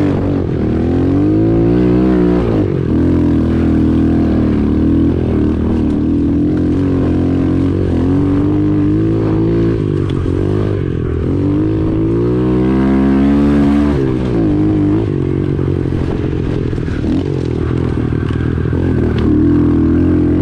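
Pit bike's single-cylinder engine revving up and down as it is ridden on a dirt trail, its pitch climbing and dropping several times with the throttle and gear changes, with one long climb that falls away about two-thirds of the way through.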